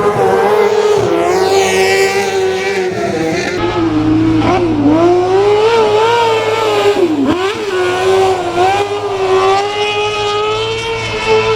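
Off-road racing car's engine revving hard. Its pitch wavers with the throttle and dips sharply twice, about five and seven seconds in.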